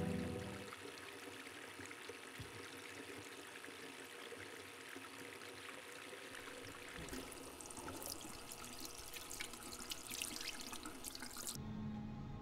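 Faint trickle of running water, growing more splashy about seven seconds in; near the end it cuts off and a steady low hum takes over.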